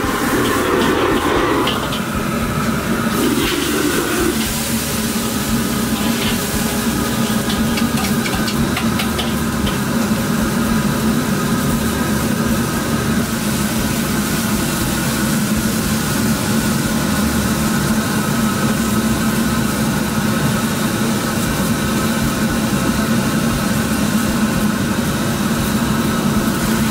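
High-output gas wok burner running with a steady rush, with bean sprouts and noodles sizzling in the hot wok. A metal ladle knocks and scrapes against the wok repeatedly over the first several seconds.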